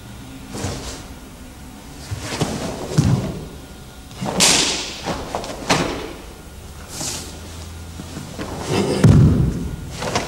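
Bare feet stepping and stamping on a wooden floor during a karate kata: several separate thuds, the heaviest about nine seconds in, with sharp swishes between them as the techniques are thrown.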